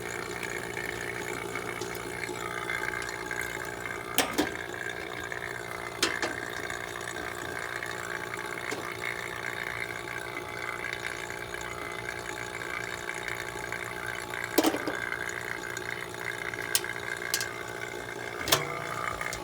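Refrigeration vacuum pump running steadily, evacuating the new heat pump's lines to pull moisture out of the system. A handful of sharp clicks and knocks sound over it.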